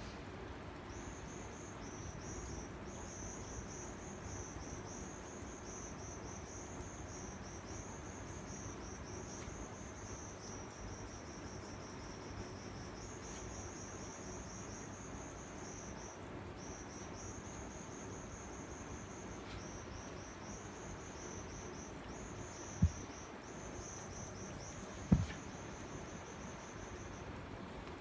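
An insect trilling in long, high-pitched, rapidly pulsing phrases with short breaks, over a steady low background hiss. Two sharp knocks, about two and a half seconds apart, come near the end and are the loudest sounds.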